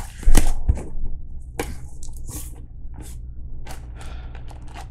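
A cardboard shipping box being opened and handled: a loud knock about a third of a second in, then scattered short scrapes and rustles of cardboard.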